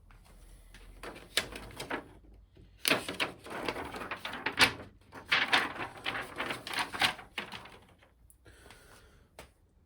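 Clicking and clattering handling noises in bursts: a few clicks about a second in, then a dense rattling run from about three to seven and a half seconds.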